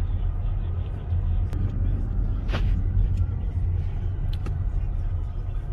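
Steady low rumble of a car driving, heard from inside the cabin, with a few faint clicks and one brief higher sound about two and a half seconds in.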